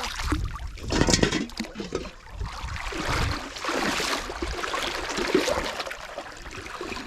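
Shallow seawater lapping and trickling among beach rocks, an irregular wash that swells and ebbs, with some low rumbling underneath.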